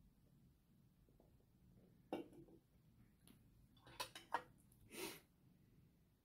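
Quiet room with small table sounds: a knock about two seconds in as a drink can is set down, then a quick run of clicks as chopsticks tap against plastic takeaway food containers, and a short scrape about five seconds in.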